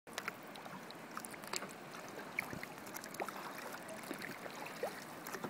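Kayak paddles dipping and pulling through calm water, with small irregular splashes and drips running off the blades over a soft steady water hiss.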